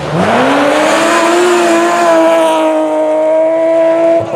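Rally car engine at full throttle on a gravel road: the pitch climbs steeply in the first second, then holds high and steady before dropping suddenly near the end, over a hiss of tyres and gravel.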